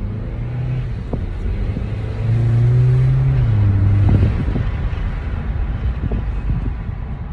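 Car engine pulling away and accelerating. Its note grows louder about two seconds in, holds strongest for a couple of seconds, then drops in pitch and eases off, over road rumble.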